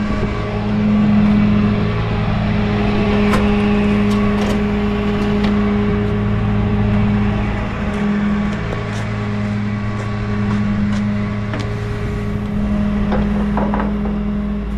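Rollback tow truck's engine running at a steady idle, a constant low hum, with a few light clicks and knocks over it.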